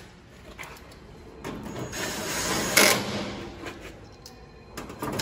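Cordless drill/driver running, driving a screw into the grill's sheet-metal front panel for about two seconds from about one and a half seconds in, with a sharp click near the end of the run as the screw seats; the drill starts on the next screw at the very end.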